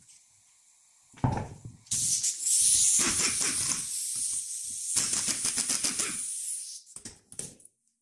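A knock about a second in, then a loud hiss lasting about five seconds that flutters unevenly.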